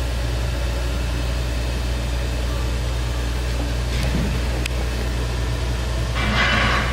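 Hydro-Chem Systems variable-speed pressure washer's electric pump and motor running with a steady low hum. A faint click comes about four seconds in, and a short hiss near the end.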